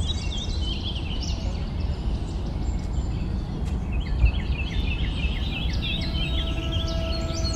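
Many small birds chirping and twittering over a steady low rumble. Near the end, soft sustained music tones begin underneath.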